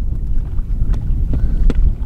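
Wind buffeting the microphone in a steady low rumble. Over it, a few light, quick footsteps from a child running on concrete come in about halfway through.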